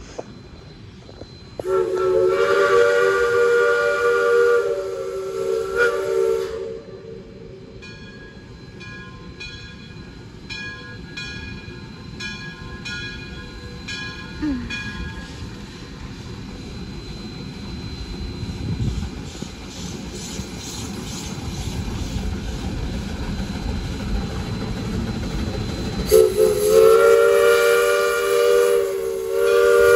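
Steam whistle of the Shay geared steam locomotive Dixiana blowing two long chime blasts of several notes at once, the first about five seconds long and the second starting near the end. Between the blasts there is a ringing of about two strikes a second, then the locomotive's working and rolling noise grows louder as it approaches.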